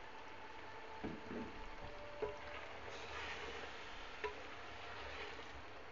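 Chicken and masala sizzling faintly in oil in a metal pot while a wooden spoon stirs it, with a few soft scrapes of the spoon against the pot.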